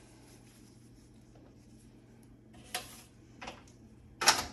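A few short knocks and scuffs of hands and tools working inside a microwave, over a faint steady hum. The loudest is a sharp, brief noise near the end.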